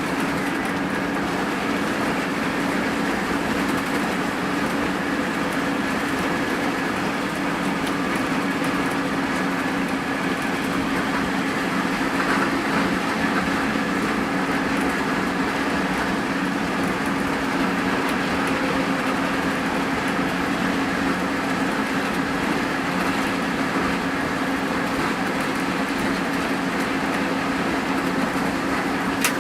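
Hino RN285 coach's diesel engine running steadily at cruise, a constant hum with even pitch over tyre and road noise, heard from inside the cabin.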